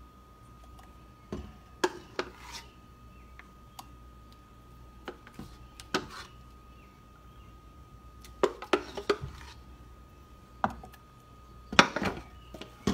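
Plastic measuring cup tapping and scraping against a metal muffin tin as bean batter is scooped into the cups: scattered clinks and knocks, with a louder cluster near the end.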